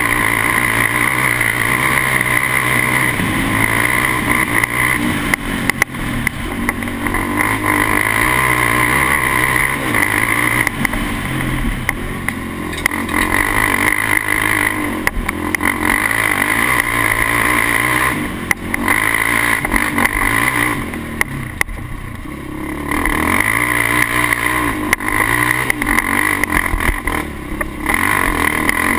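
Polaris Outlaw 525 quad's single-cylinder four-stroke KTM engine running hard through an HMF exhaust on a rough uphill dirt climb. The revs rise and fall with the throttle, and it eases off briefly twice about two-thirds of the way through before pulling hard again.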